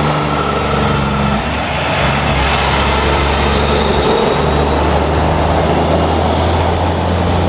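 Heavy diesel truck pulling a trailer, driving close past: a steady engine drone with tyre and road noise.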